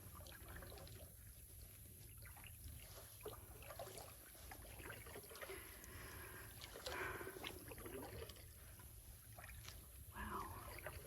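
Faint kayak paddle strokes dipping into calm water, with trickling drips and small clicks.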